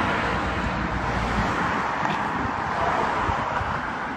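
Steady road traffic noise from cars on a nearby road, with wind buffeting the phone's microphone as a low, uneven rumble.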